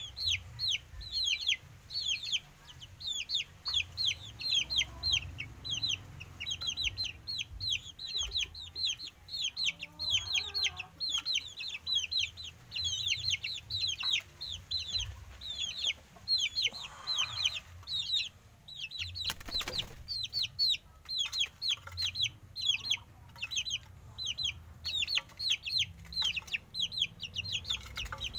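Month-old Saigon × Pama crossbred chicks peeping nonstop as they feed: a rapid run of short, high-pitched, falling peeps, several a second.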